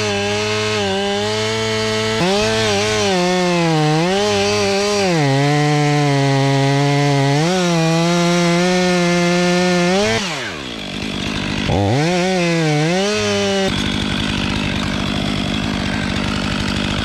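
Chainsaw cutting wood, its engine pitch repeatedly sagging under load and climbing back. About ten seconds in the throttle drops off, the saw revs up again briefly, and then it falls away to a steadier, lower hum.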